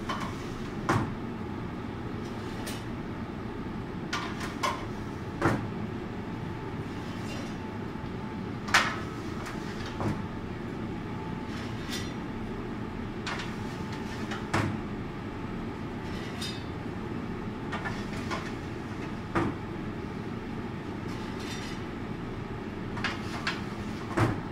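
Metal sheet pans clanking against the rails of a donut proofing cabinet as they are slid in, about a dozen sharp metallic knocks at uneven intervals over a steady low hum.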